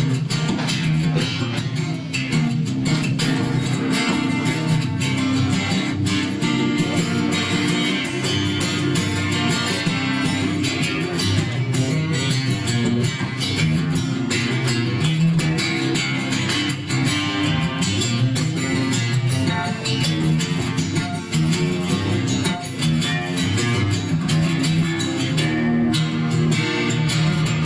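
Solo acoustic guitar strummed steadily through an instrumental break in a song, with no vocals.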